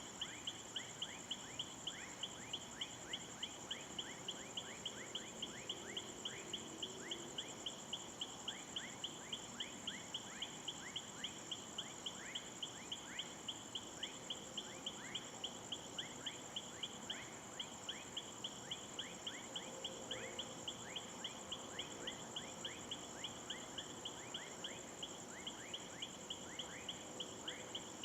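Night insect chorus: a steady pulsing chirp about three times a second over a continuous high buzz, with many short falling chirps underneath.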